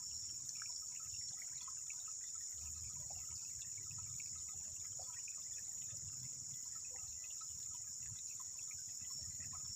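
Steady high-pitched insect chorus, crickets or cicadas trilling without a break, over a soft low rumble of water or wind.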